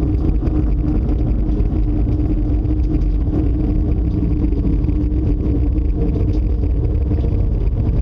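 Loud, steady low rumble of storm wind, with a constant droning hum running through it.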